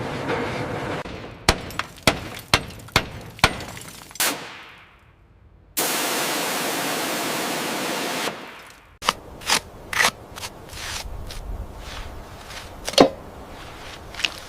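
A quick run of sharp knocks, about six in three seconds, then a steady hiss that starts and stops abruptly, then a few more knocks and one loud one near the end.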